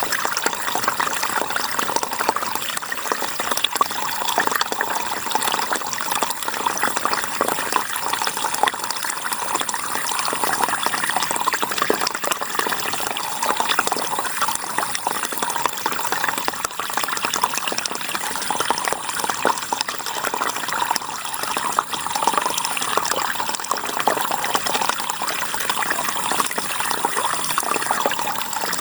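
River water flowing and splashing steadily, an even rushing sound without pause.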